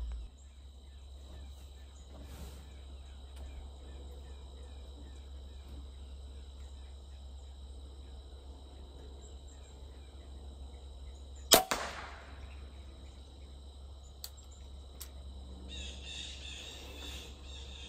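Barnett Hyper Raptor 410 crossbow firing once, about two-thirds of the way in: a single sharp crack as the string and limbs release, with a short tail after it. The arrow's nock is fully clicked onto the string, and the shooter hears the shot as different and better because of it.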